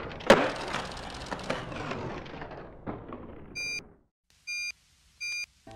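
Skateboard landing with a sharp clack just after the start, then the wheels rolling on a concrete sidewalk with a few clicks over the seams, fading away. Three short electronic beeps follow over silence near the end.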